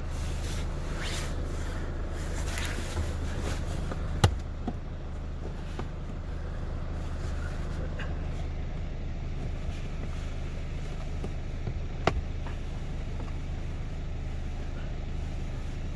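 Plastic trim panel in a car footwell being pulled free by hand: rubbing and scraping in the first few seconds, then a sharp snap about four seconds in and another about twelve seconds in as its clips let go, over a steady low hum.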